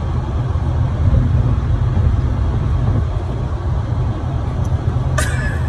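Steady low rumble of road and engine noise inside a moving car's cabin. About five seconds in there is one brief, sharp, higher sound.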